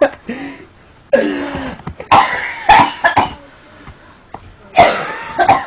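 A person coughing and clearing their throat in three loud fits: about a second in, around two to three seconds, and near the end.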